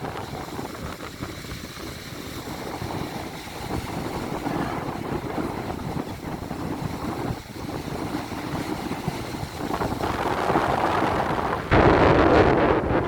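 Wind buffeting the microphone over the sound of sea waves, a steady rushing noise that builds and turns suddenly louder near the end with a strong gust.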